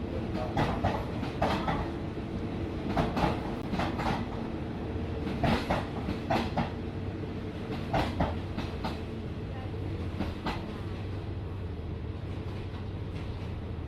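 Train wheels clattering over rail joints as a train rolls slowly past, the clicks coming in pairs every second or so and stopping about ten seconds in. A steady low hum continues under them.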